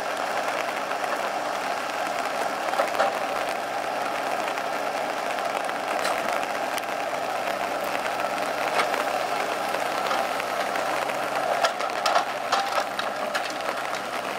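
Valmet 840.3 forwarder's diesel engine running steadily while its hydraulic crane works. Scattered knocks from the crane and grapple handling logs come through, with a cluster of them near the end.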